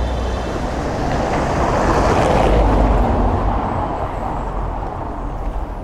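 A motor vehicle passing close by on the street, its engine and tyre noise swelling to a peak about halfway through and then fading away.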